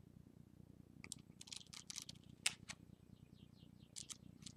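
Faint, irregular small clicks and rustles of a paper guidebook and card packaging being handled, starting about a second in.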